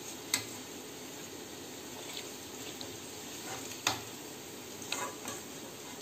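Cauliflower pieces sizzling steadily in hot oil in a steel kadai, with three sharp clinks of a metal spoon against the pan as the fried pieces are lifted out.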